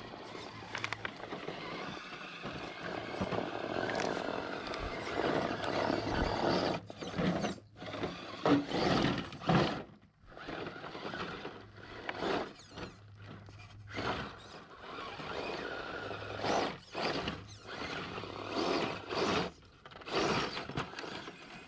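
Radio-controlled Enduro Trail Walker crawler truck climbing over rocks: its small electric motor and gears whir in repeated spurts with short pauses, and its tyres scrape and crunch on rock and gravel.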